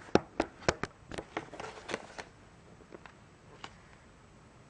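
Clear plastic clamshell packaging crackling and clicking as it is handled and turned over: a quick run of sharp clicks over the first two seconds, then a few scattered ticks.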